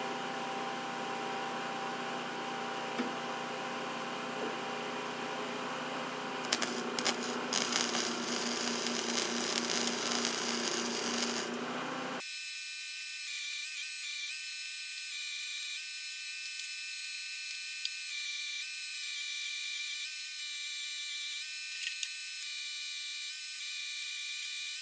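A wire-feed welder's arc crackling and sizzling as it welds seams on a sheet-steel box, after a few seconds of steady hum. About halfway through the low end cuts off abruptly, leaving a thin, high buzz.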